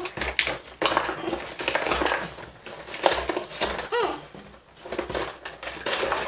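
Toy box packaging being torn and pulled open by hand: irregular crackling and crinkling of plastic and cardboard.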